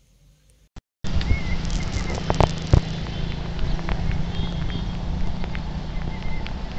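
Near silence for about a second, then a sudden cut to a steady rush of fast-flowing water from a river in flood, with wind buffeting the microphone.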